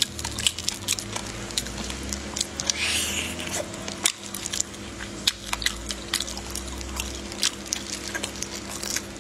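Close-up eating of marinated raw shellfish in its shell: biting, chewing and squishing, heard as a stream of short wet clicks and cracks over a steady low hum.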